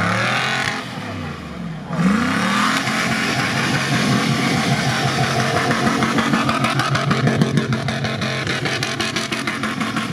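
SUV engine revving hard as it drifts on snow, wheels spinning. The revs climb sharply about two seconds in, then hold high and steady.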